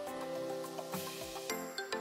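Background music with sustained notes and light ticking percussion.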